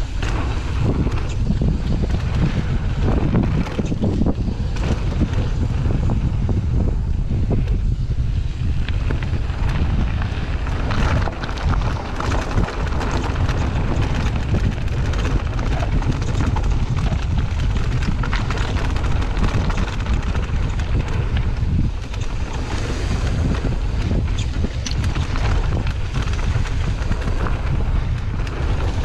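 Wind buffeting the microphone of a camera on a mountain bike descending fast, with the tyres crunching over loose rock and gravel and the bike rattling.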